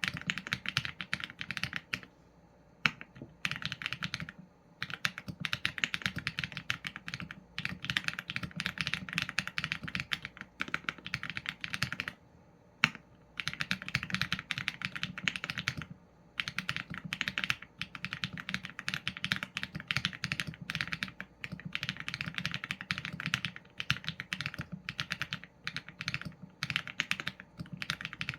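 Mechanical keyboard with Leobog Graywood v4 linear switches and PBT keycaps being typed on: fast runs of keystrokes broken by short pauses, with a louder single keystroke about 3 s in and again about 13 s in.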